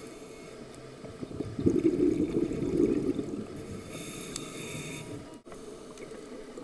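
Underwater scuba breathing heard through a camera housing: a burst of exhaled regulator bubbles burbling past for about a second and a half, then a hissing inhalation through the regulator.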